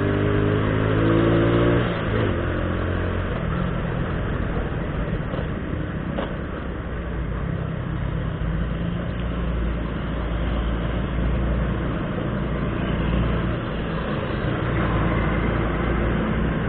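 Motorcycle engine accelerating, its pitch rising for about two seconds before the throttle eases off, then a steady low rumble of engine, tyre and wind noise as the bike rides along in traffic.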